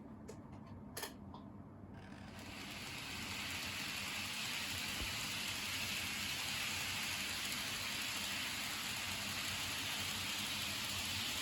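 TOMIX N-gauge E4 series Shinkansen model train running on its track: a steady whirring hiss of its motor and wheels that builds up about two seconds in, after a brief click near one second. The owner takes the noise for an abnormal one, heard with slow running.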